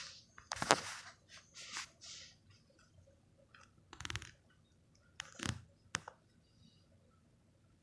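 Domestic cat purring close to the microphone, heard as a few short rasping purr-breaths with faint rubbing or rustling and a sharp click about six seconds in.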